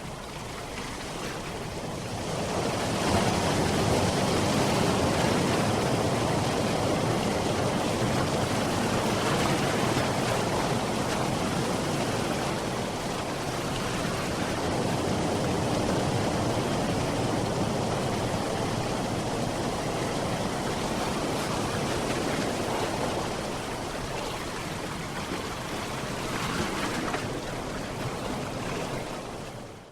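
Sea surf washing on a shore: a steady rush of water that swells about three seconds in, eases off slowly, swells again briefly near the end, then cuts off suddenly.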